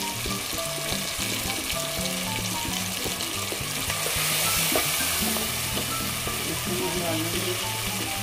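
Onion and tomato masala sizzling in hot oil in a pan, stirred with a slotted plastic spatula. The sizzle gets louder about halfway through, as turmeric powder goes in and is stirred.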